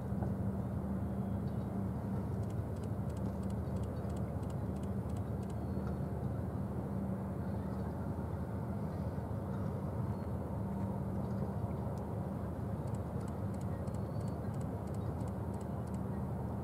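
Cruise ship Mein Schiff 4 under way, its machinery giving a steady low hum and rumble with one constant drone through it.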